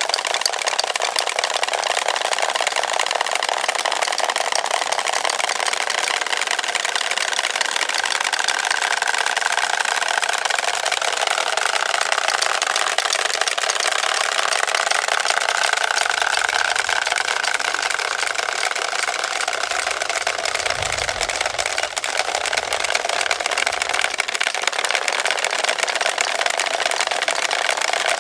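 Wooden Easter rattles (Klappern) being worked continuously, a dense, even clatter of many rapid clicks.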